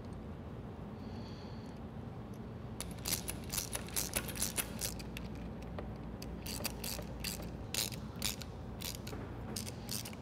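Ratcheting hand tool clicking in quick, irregular runs as it drives in the screws of the handlebar clamp that holds a winch control switch, starting about three seconds in.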